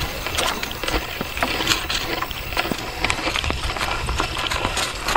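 Footsteps of several people walking quickly through long grass: irregular footfalls and rustling.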